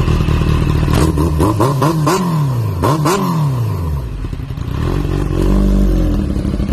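Supercharged Kawasaki Ninja H2 inline-four running at idle through a titanium exhaust. It is blipped up and down about five times in quick succession between about one and three and a half seconds in, then settles back to a low idle.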